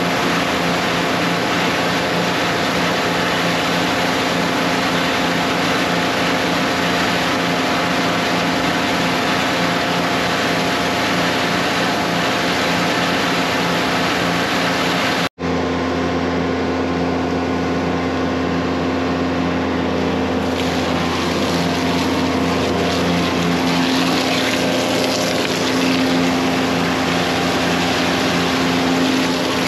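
Steady drone of a combi jetting-and-vacuum tanker's engine and pumps, with high-pressure water jetting into a grease-trap chamber. About halfway through it cuts out for an instant and comes back with a deeper hum.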